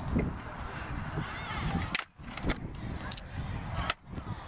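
Kick scooter wheels rolling on concrete with a low rumble, with a few sharp clacks of the scooter hitting the ground. The sound cuts out briefly twice.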